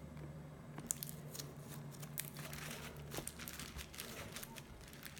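Faint, rapid sticky crackles and clicks of fluffy butter slime being handled and mixed by hand, over a low steady hum.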